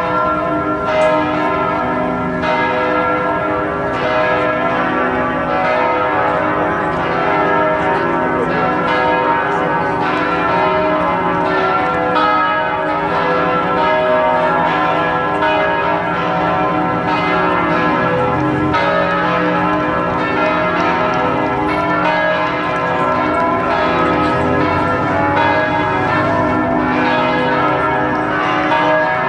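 Church bells of the Basilica of Notre-Dame in Montreal pealing, several bells struck over and over so that their tones ring on over one another without a pause.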